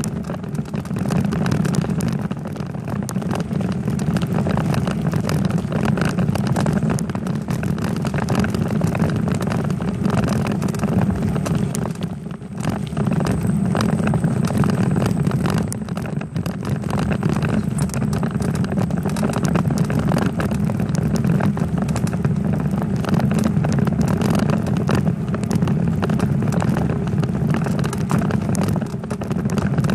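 Steady rumble and rattle picked up by a bicycle-mounted camera while riding along a road, with many small knocks throughout from road vibration; it dips briefly about twelve seconds in.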